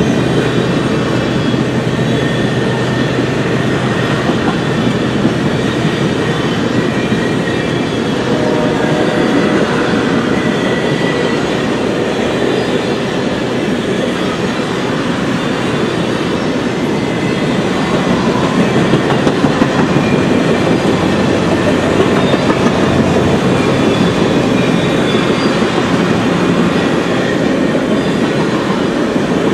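A long train of steel passenger cars rolling past at speed: a steady rumble and clatter of wheels on the rails.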